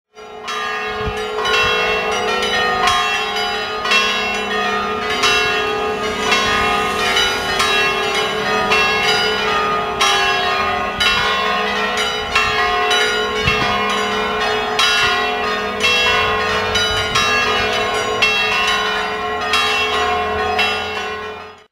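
Church bells pealing, several bells struck over and over in quick succession over their own continuing hum. The peal starts abruptly and fades out near the end.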